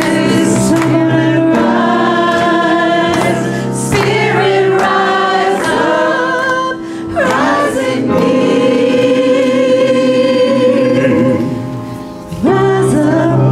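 Mixed choir of men and women singing a gospel-style song in held chords, with short breaks between phrases.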